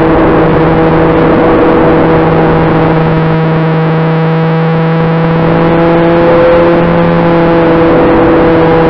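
Electric motor and spinning propeller of a twin-motor RC model airplane in flight: a steady whine over a rush of air, swelling slightly about six and a half seconds in.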